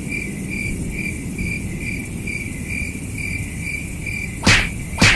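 Cricket chirping sound effect: a steady high chirp repeating about two to three times a second over a low rumble. Near the end, two short loud sweeps of noise cut across it.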